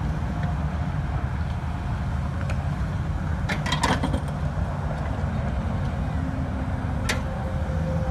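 A 6.0-litre V8 truck engine idling with a steady low rumble. A quick cluster of sharp clicks comes about three and a half seconds in, and a single click about seven seconds in.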